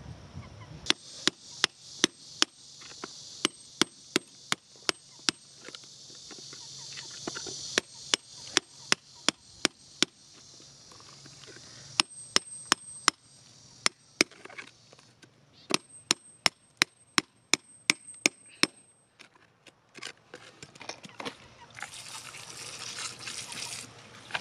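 A metal digging tool striking and prying among stones in wet, gritty soil: sharp clicks in runs of about three a second, with short pauses between runs.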